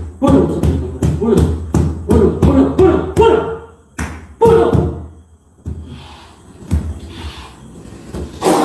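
A man's voice chanting in drawn-out phrases over sharp knocks for about five seconds, then a quieter stretch broken by a few scattered thumps.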